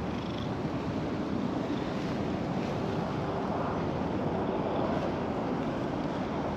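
Steady wind rushing and buffeting on the microphone.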